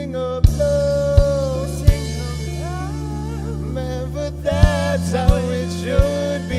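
Live band music: a singer holds long, wavering notes over steady bass and sustained chords, with drum hits in two groups of three, spaced about 0.7 seconds apart.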